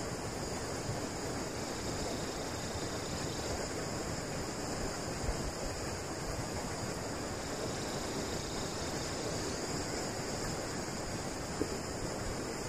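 Steady wind, an even rushing noise with a constant high hiss above it, and a few faint low thumps.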